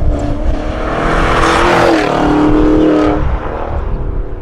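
Maserati Levante GTS twin-turbo V8 accelerating past with its Fi valvetronic exhaust valves open and sport downpipes fitted. The engine note swells as the car nears, drops in pitch as it passes about two seconds in, and fades away.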